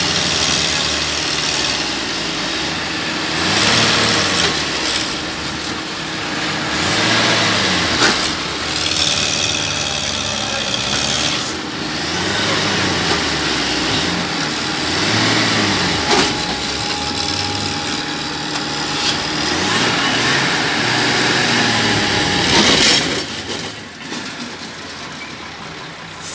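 Diesel engines of a Tata LPT truck and a Farmtrac 6055 tractor revving up and down again and again, straining under load as they pull against each other, with spells of hissing. Near the end the revving stops and the noise drops.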